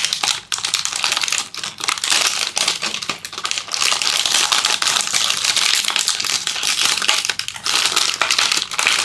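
Plastic seaweed-snack packet crinkling loudly and continuously as it is wrestled open by hand, with sharp crackles throughout.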